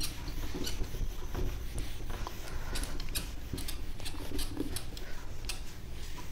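Handheld eraser wiped over a whiteboard in quick repeated strokes, a string of short rubbing sounds about two or three a second, over a low steady background hum.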